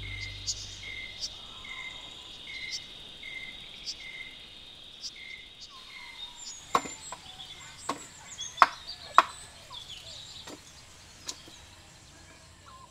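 Crickets chirping in the dark: a steady high trill with a pulsing chirp about every two-thirds of a second, which stops about six seconds in. Then scattered sharp knocks, about half a dozen, from work on a bamboo-and-wood cage, with faint bird chirps.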